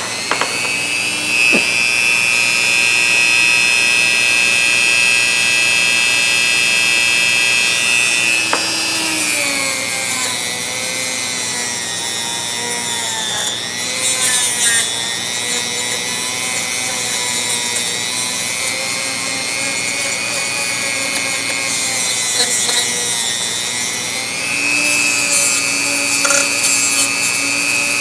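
Dremel rotary tool spinning a small fiber wheel against a rusty steel ratchet, grinding off the rust. Its high whine drops lower and turns rougher about nine seconds in, then rises again near the end.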